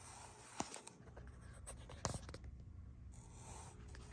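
Faint handling noise: soft rubbing and scraping with a few light clicks, the loudest about two seconds in, over a steady low hum.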